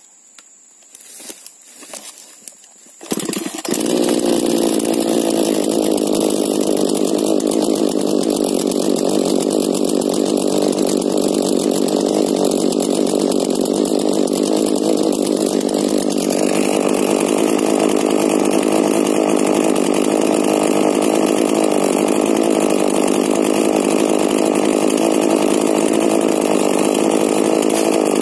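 A small 40 cc chainsaw with a modified exhaust starts about three seconds in, after a few brief faint sounds. It then runs steadily, and its note shifts slightly about sixteen seconds in.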